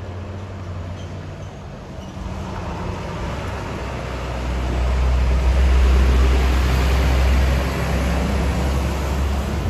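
A large coach's diesel engine pulling up a steep hairpin bend. It grows much louder as the bus passes close by about halfway through, then eases off a little near the end.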